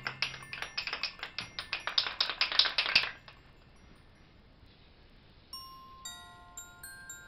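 Rapid clattering of Christmas baubles being handled, several clicks a second, stopping after about three seconds. Near the end, tinkling glockenspiel-like background music comes in.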